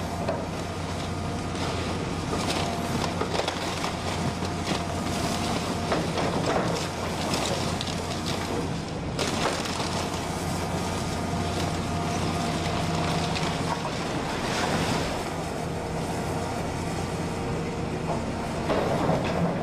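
Hydraulic excavator's diesel engine running steadily while its bucket breaks up a wood-frame house, with repeated cracking and crunching of splintering timber and falling debris.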